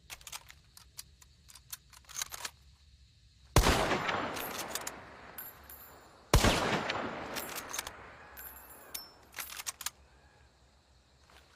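Mosin-Nagant bolt-action rifle firing two shots about three seconds apart, each with a long echoing tail. Sharp metallic clicks of the bolt come before, between and after the shots.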